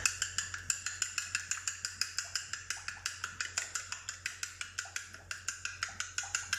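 A metal utensil beating a raw egg in a ceramic plate: rapid, regular clicks of metal against the plate, about six a second.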